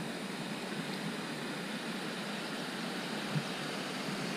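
Steady rushing hiss of the creek's running water, with one light knock about three and a half seconds in.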